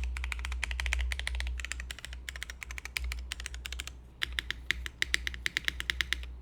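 Continuous typing on a mechanical keyboard with Cherry MX Black linear switches on an o-ring-mounted aluminium plate in a Kypseli case, with GMK keycaps. The keystrokes come in rapid runs, with a brief lull about two seconds in and a run of sharper, evenly spaced strokes from about four seconds. A steady low hum sits underneath.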